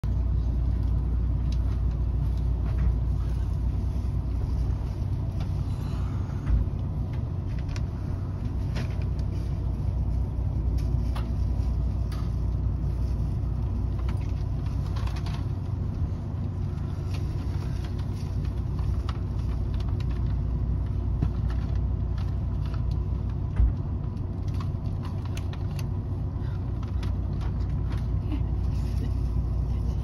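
Steady low hum inside a JR West 683 series express train car standing at the platform before departure, its onboard equipment running, with a few faint clicks and knocks.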